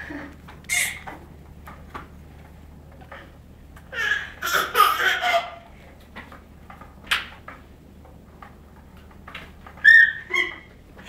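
A baby's high-pitched squeals and giggles: a short squeal near the start, a longer burst of excited squealing about four seconds in, and a sharp high squeal near the end, with a faint steady room hum underneath.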